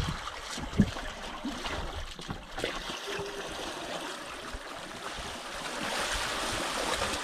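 Sea water rushing and splashing around a swimmer towed on a line behind a moving sailing yacht; the splashing grows louder near the end. A few short low knocks come through, the strongest about a second in.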